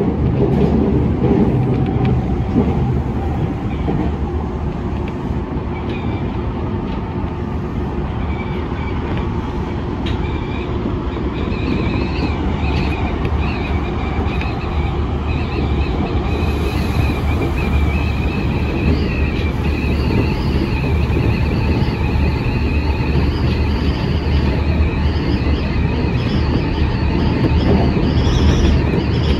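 Senboku Rapid Railway 5000 series electric train running at speed, heard from inside the front car: a steady rumble of wheels on rail. About eleven seconds in, a high, slightly wavering whine joins the rumble and stays.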